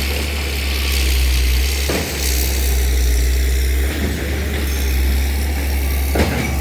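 Excavator's diesel engine running steadily with a deep, constant rumble, with a couple of brief knocks.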